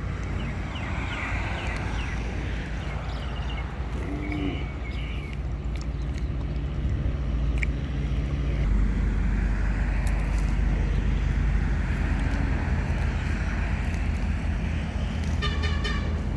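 A running engine drones low and steady, getting louder about halfway through. A few brief high-pitched calls sound over it, one just before the end.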